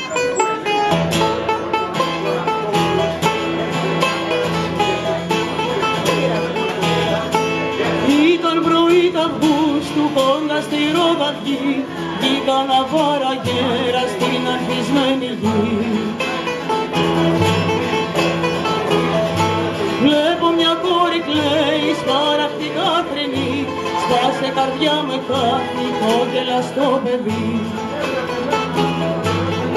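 Live acoustic music: a steel-string acoustic guitar, a round-backed long-necked lute and a hand frame drum playing together, with a voice singing over them.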